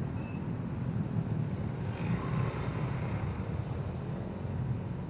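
Motorcycle engine running steadily, heard from the rider's seat, with a low rumble of city traffic around it.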